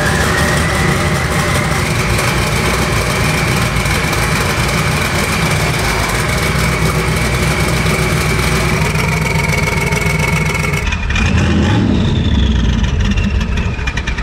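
Twin-turbo Ford Windsor stroker V8 engine running steadily, with a thin high whine that rises a little in the first two seconds and then holds. About eleven seconds in the sound changes abruptly.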